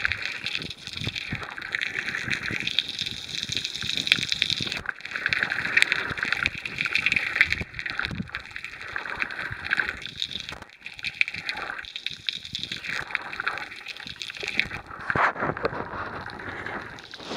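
Water gurgling and sloshing, heard underwater just below the surface, with a dense crackle of small clicks that swells and fades unevenly.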